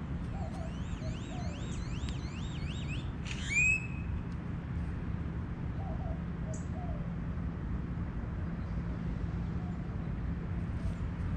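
Wild birds calling: a run of quick, repeated rising-and-falling whistled notes, then one louder down-slurred call about three and a half seconds in. Faint low notes come now and then over a steady low rumble.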